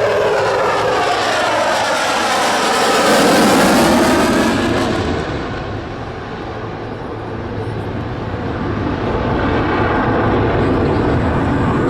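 F-22 Raptor jet making a pass with its twin afterburning turbofans. The jet noise swells to its loudest about three and a half seconds in, then the high hiss drops away as the jet moves off, leaving a low rumble that builds again near the end.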